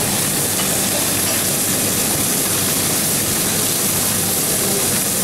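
Whole lemon sole frying in a frying pan: a steady sizzle over a constant low hum.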